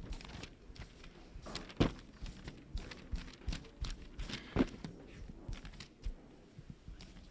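Scattered footsteps with irregular light knocks and bumps, including microphone handling noise, in a quiet room; the two loudest knocks come about two seconds in and a little past the middle.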